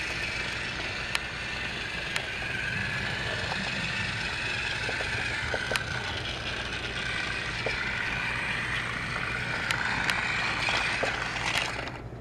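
Small electric motor of a battery-powered TrackMaster motorized toy train whining steadily as the engine runs along plastic track, with a few light clicks. The whine drops away right at the end.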